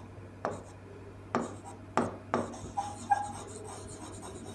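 Marker pen writing on a whiteboard: about five quick scratchy strokes and taps, with a short squeak about three seconds in.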